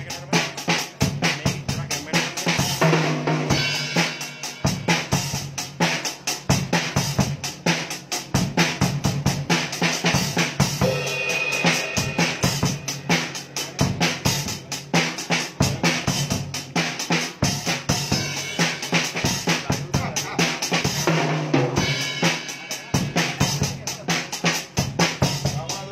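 Acoustic drum kit played alone at a fast pace, a dense run of snare, tom and bass drum strokes with cymbals, the strikes following each other closely without a break.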